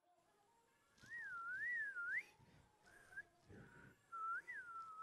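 Faint whistling: a single clear tone that swoops up and down a couple of times about a second in, comes back in short broken pieces, then holds one steady note near the end.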